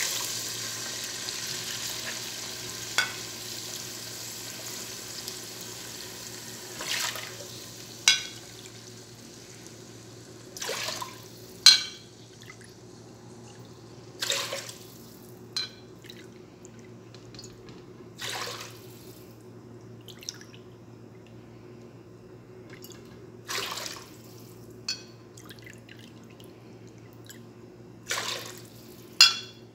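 Water poured from a cup into a large steel pot of onions, cup after cup. It is loudest at the start and fades over the first several seconds, then comes as short splashing pours every few seconds, with a few sharp clicks. A steady low hum runs underneath.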